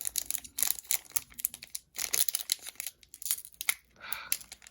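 Foil wrapper of a Pokémon trading card booster pack being torn open and crinkled by hand, a dense run of irregular crackles and rips.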